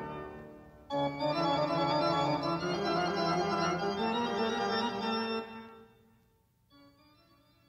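Organ chords from a spooky sound-effects tape: a chord fades out, a new one starts about a second in and is held for about four and a half seconds before dying away, and a faint chord comes in near the end.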